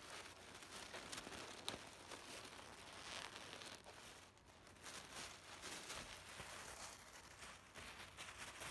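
Faint crinkling and rustling of a thin clear plastic bag as a plush toy is handled and unwrapped from it, with scattered small clicks.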